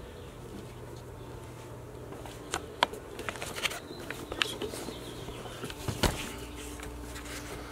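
Handheld camera being moved and turned around: scattered light clicks and knocks over a steady low hum, with a sharper knock near the end.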